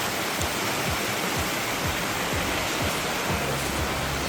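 Steady rushing of the stream fed by Glencar Waterfall, water tumbling over rocks.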